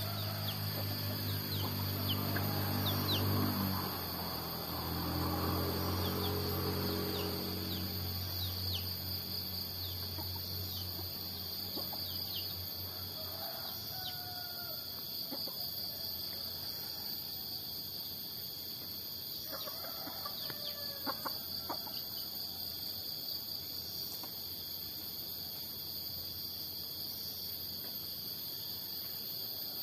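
Steady high chirring of crickets with scattered short bird chirps, and the clucks of a chicken near the middle. Early on, two long low droning sounds, one after the other, take up the first eight seconds.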